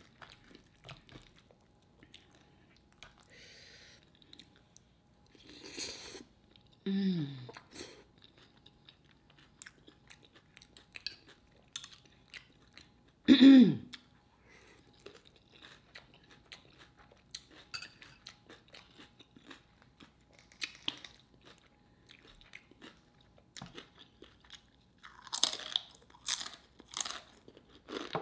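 Close-miked chewing and crunching of food, with crisp crunches of homemade tortilla chips and wet mouth clicks throughout. Two short hums falling in pitch come about seven and thirteen seconds in, and a run of loud crunches comes near the end.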